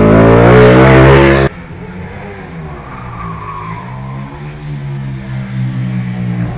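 Ducati 899 Panigale superbike's L-twin engine revving hard and loud, then cutting off abruptly about a second and a half in to a quieter engine note that wavers up and down in pitch, building again near the end.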